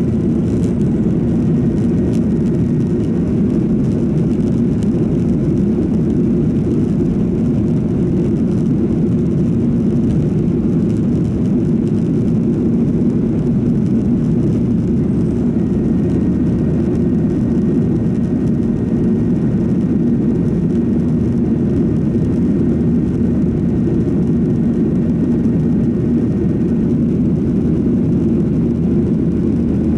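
Boeing 737-800 cabin noise in flight, heard from inside the cabin: a steady low drone of its CFM56 jet engines and the air rushing past the fuselage, unchanging throughout.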